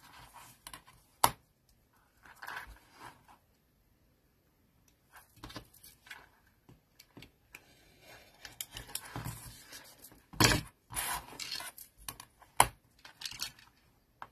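Paper and craft tools handled on a cutting mat: scattered rustling and scraping with a few sharp taps, the loudest about ten seconds in.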